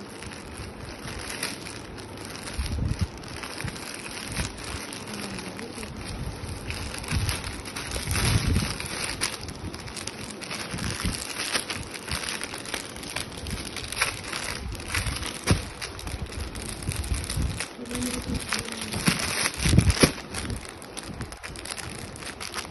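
Plastic packaging crinkling and rustling as hands open a courier poly mailer and handle a suit in its clear plastic wrapper, with a few dull thumps of handling.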